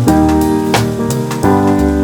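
Background music: held keyboard chords over a bass line with a steady drum beat, the chord changing about one and a half seconds in.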